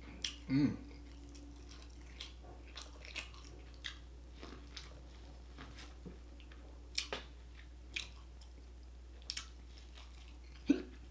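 A person biting and chewing tortilla chips close to the microphone: irregular crisp crunches and mouth clicks, with a louder mouth sound just under a second in.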